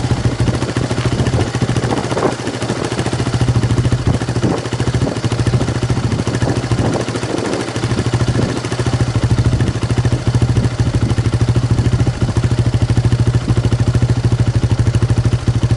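Suzuki Gixxer SF250's single-cylinder engine running through a BEAMS CORSA-EVO II stainless full exhaust system, idling with a quick, even exhaust beat. A few slight irregularities in the first half, then very steady from about nine seconds in.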